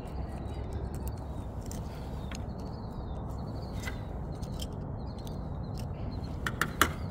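Steel pick tool scraping and clicking against the end of an HWH hydraulic slide-out cylinder clamped in a vise, probing at the old seal, which is breaking up. Scattered light clicks and scrapes, with a few sharper ticks near the end, over a steady low background noise.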